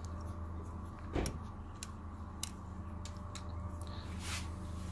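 Faint metal-on-metal clicks and a soft knock about a second in, from a T45 Torx socket wrench being worked on a bolt on an engine's cylinder head and lifted off, over a steady low hum.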